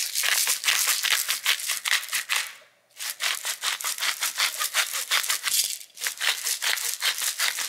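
Hand-held salt grinder being twisted, a fast run of dry grinding clicks in three spells with short pauses between them.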